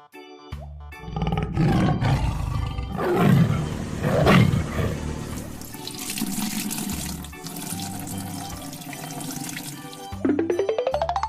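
Cartoon sound effects over music: a roar, then a long rushing, water-like noise, then a rising sweep made of quick pulses near the end.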